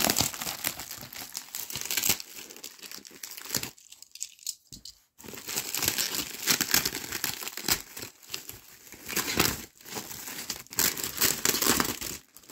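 Plastic bubble wrap being crinkled and pulled apart by hand, in busy bursts with a pause of about a second and a half about four seconds in.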